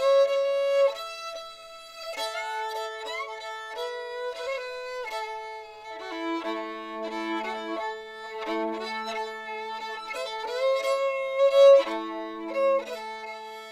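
Background music: a fiddle playing a melody over held lower notes.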